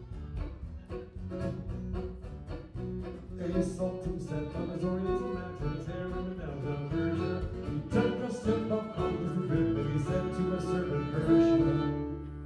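Live acoustic band music: a steadily strummed acoustic guitar with bass and a child's fiddle playing a folk tune.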